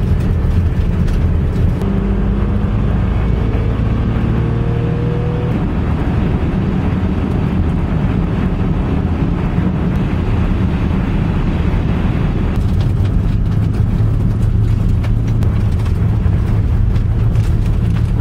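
A car driving on the road, with a steady engine hum and tyre noise heard from inside the car. The pitch rises slightly a few seconds in.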